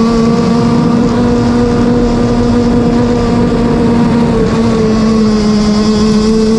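Zenoah gas two-stroke engine of a Bonzi Sports 47 Skater RC boat running steadily at speed, heard from onboard over the hiss of water and wind. Its pitch dips slightly in the middle and then climbs back.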